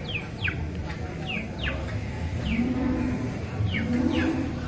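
Cattle lowing: two low moos, one about halfway through and one near the end. Over them runs a bird's string of short chirps, each falling in pitch.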